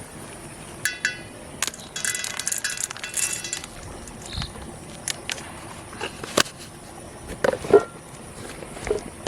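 Irregular clinks and rattles, with scattered knocks.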